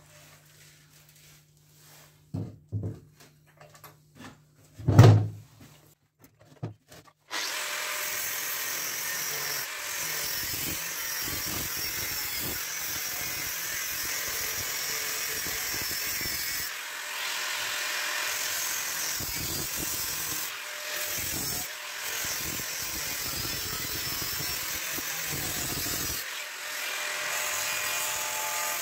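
A few knocks, then about seven seconds in a power tool starts up and runs steadily, cutting into the metal casing of a stock BMW E39 exhaust muffler. It eases off briefly a few times.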